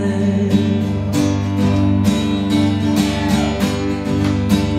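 Live rock song: a strummed acoustic guitar keeps a steady rhythm, about two strokes a second, over a sustained bass. A male singer holds the last word of a chorus line at the start.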